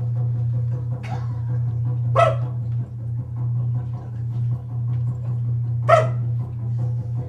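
A man's voice in a shamanic trance, holding a steady low hum broken by two short, sharp bark-like yelps a few seconds apart: a vocal animal imitation.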